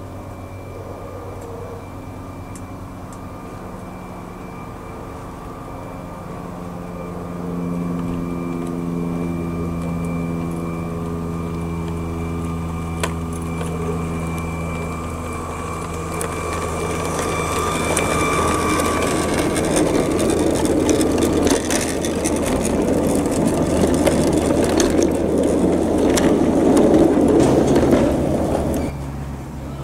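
Large-scale electric model locomotive, Bachmann's 'Thomas', running along garden track with its coaches: a steady motor and gear hum whose pitch shifts. It grows louder with wheel clatter and clicking over the rails as the train comes up and passes close by, then cuts off abruptly near the end.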